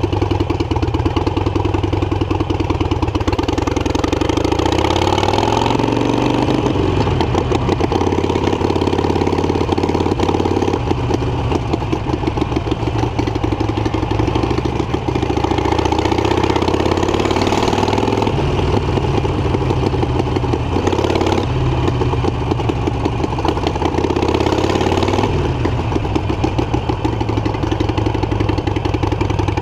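Harley-Davidson Iron 883's air-cooled V-twin running through an aftermarket exhaust, heard from the rider's seat while riding. It rises in pitch three times as the bike accelerates, dropping back between pulls.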